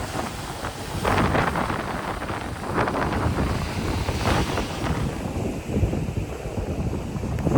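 Strong wind buffeting the microphone in irregular gusts, a constant low rumble that swells several times, over the wash of ocean surf.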